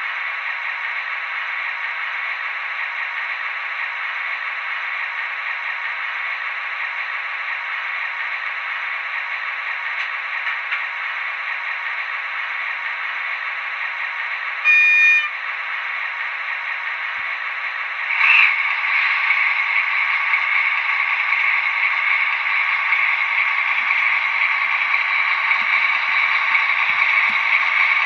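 Diesel engine sound from an H0 model diesel locomotive's sound decoder through its small speaker, running steadily and thin, with no bass. A short horn toot comes about halfway through, and a few seconds later the engine sound steps up and runs louder.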